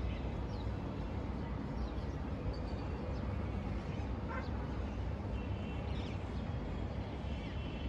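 Outdoor city ambience over rooftops: a steady low rumble with faint, scattered distant animal or bird calls every second or so.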